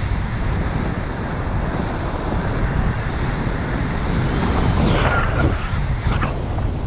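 Wind buffeting the microphone of a camera flying on a paraglider: a steady low rush, with a few brief higher gusts about five to six seconds in.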